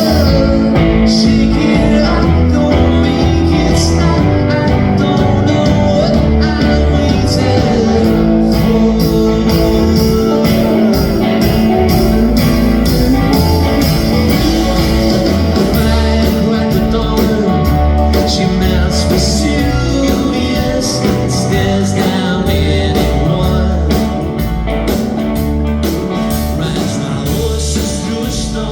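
Live rock band playing a passage of the song, with guitar over bass and drums.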